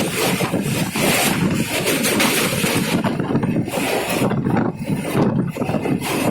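Running noise of a moving train: a loud, uneven rush and rumble, with wind buffeting the microphone.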